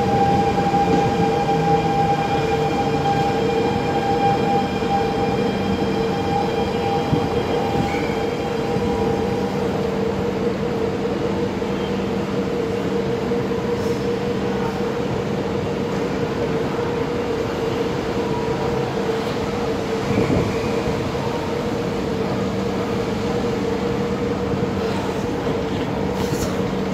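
Siemens C651 metro train at a station platform, coming to rest and then standing with its electrical equipment humming. A set of steady high tones drops away about nine seconds in, while a steady lower hum carries on.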